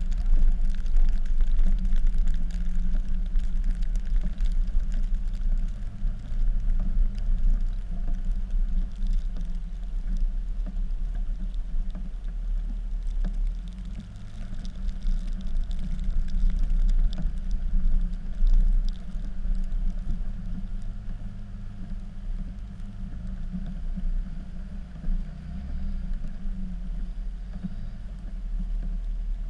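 Dodge pickup's Cummins diesel engine running under varying load while plowing snow, its pitch rising and falling.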